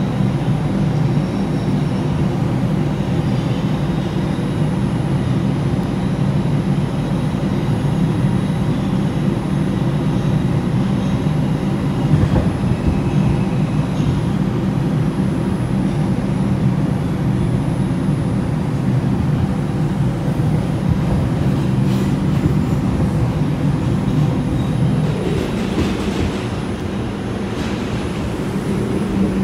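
Steady low hum and rumble of an R142 subway car, heard from inside the car.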